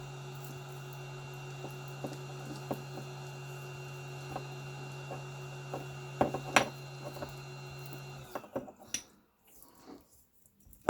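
A steady electrical hum with a faint high whine over it, which cuts off suddenly after about eight seconds, while small parts are handled with light clicks and taps, a brief cluster of them about six seconds in.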